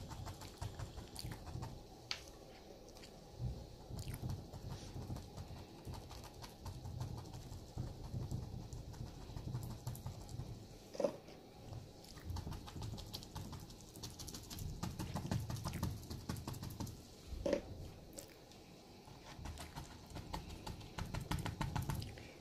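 Stippling brush dabbing paint onto a canvas: an uneven run of faint soft taps and light clicks.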